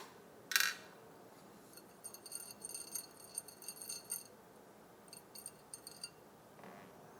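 Light metallic clinking and jingling of small metal parts of the embroidery machine's thread stand being handled, in a run of quick ringing clinks about two seconds in and a shorter run near six seconds. A brief rustle comes about half a second in.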